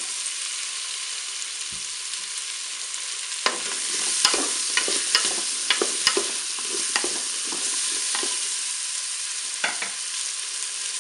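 Chorizo strips and courgette pieces sizzling in the hot pot of a Cookeo multicooker on its browning setting. From about three seconds in, a wooden spoon stirs them, knocking and scraping against the pot.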